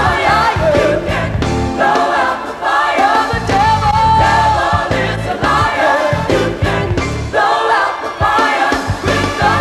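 Gospel choir singing with a band, with bass and drums dropping in and out beneath the voices.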